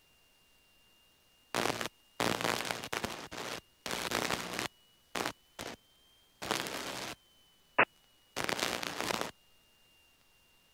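Aircraft radio and intercom audio feed: a faint steady high whine, broken between about one and a half and nine seconds in by about eight abrupt bursts of static hiss of varying length, each starting and cutting off suddenly, with one sharp click near eight seconds.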